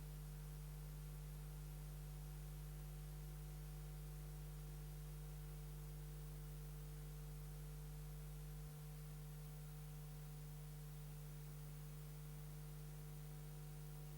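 Steady mains hum with no other sound, dropping slightly in level about nine seconds in.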